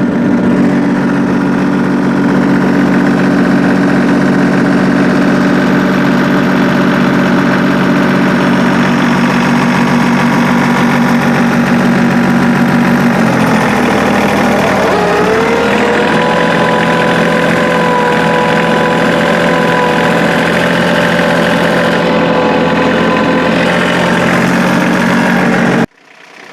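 An engine running steadily at a low, even speed. About halfway through, its pitch dips briefly, then rises and settles on a new steady, higher note.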